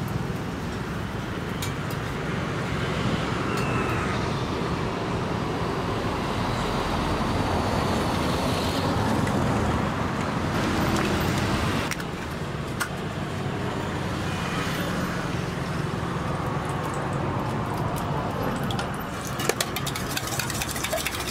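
Roadside traffic ambience: motorbikes and cars passing on the road, a steady noisy rumble.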